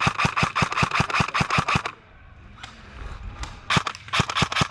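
Airsoft gun firing on full auto: a rapid, even string of sharp shots at about ten a second. It stops about two seconds in, then a fresh burst starts near the end.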